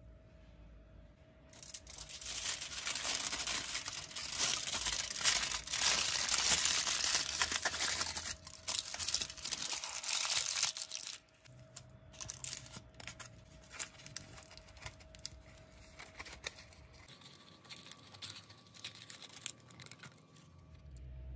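Aluminium foil crinkling and crackling as hands wrap it around a small ball and twist it shut, loud and dense for several seconds, then quieter, scattered crinkles for the rest.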